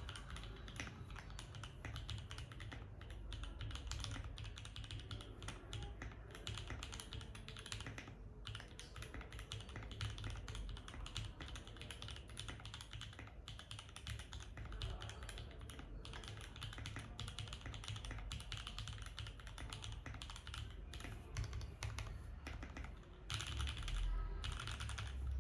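Continuous fast typing on a Tofu 65 mechanical keyboard with lubed TTC Hey linear switches, a polycarbonate plate, an O-ring mount and DCP keycaps: a dense stream of keystrokes, with short lulls about eight seconds in and near the end.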